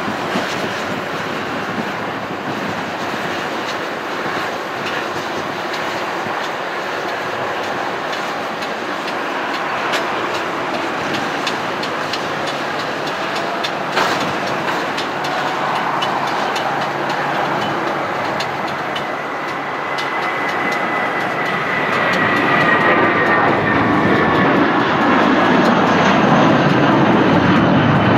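Boeing 717-200 jet rolling out on the runway after landing, its Rolls-Royce BR715 turbofans giving a steady rushing noise. About two-thirds of the way through, a whine comes in and slowly falls in pitch, and the sound grows louder.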